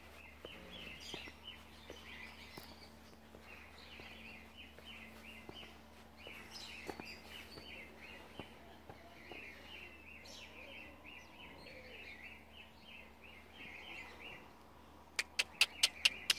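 Small birds chirping in a fast, steady run of short calls. Near the end come about six sharp clicks in quick succession.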